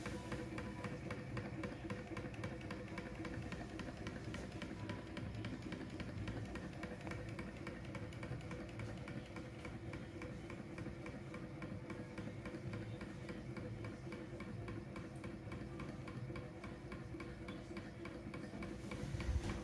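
Small model stationary engine running at a steady speed with a fast, even ticking from its valve gear and crank, plus a louder knock near the end.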